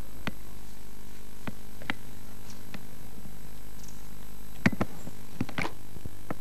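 Steady low electrical hum with scattered faint clicks and taps. A sharper pair of clicks comes about two-thirds of the way in.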